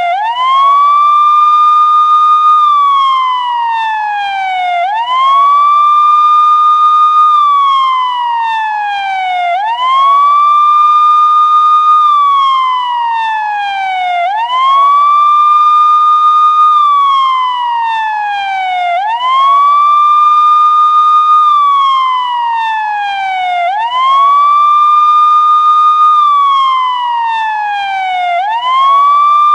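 Police siren in a slow wail, loud. Each cycle rises quickly to a high tone, holds it for about a second and a half, then glides down over a couple of seconds, repeating roughly every five seconds.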